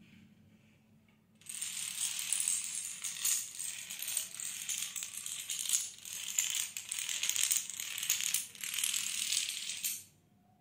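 A long chain of toy dominoes toppling row after row: a dense, continuous clatter of many small tiles knocking into each other and hitting the floor. It starts about one and a half seconds in and stops abruptly just before the end.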